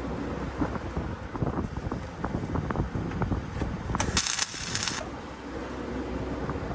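Steel parts clanking and clinking in quick irregular knocks during fit-up work, then a loud hissing, crackling burst lasting about a second, some four seconds in, over a steady low hum.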